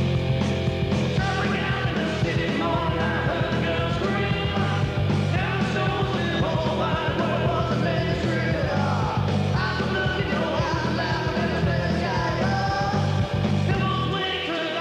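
Rock song with singing over a steady bass line; the bass drops out near the end.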